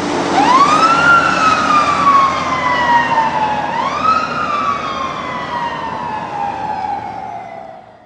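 Siren wailing: its pitch climbs quickly and then slides slowly down, twice over, before fading out near the end.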